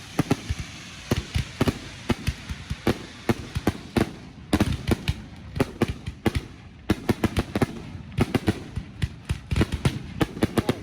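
Consumer fireworks going off in a rapid, irregular string of sharp cracks and pops, several a second, with no let-up.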